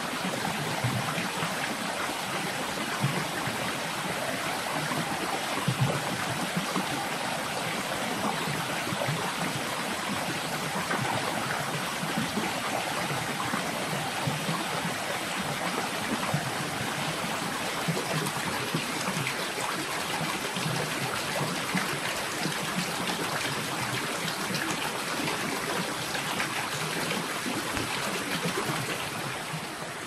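Small waterfall pouring into a shallow pool and splashing over bamboo poles: a steady rush and splash of falling water that drops away just before the end.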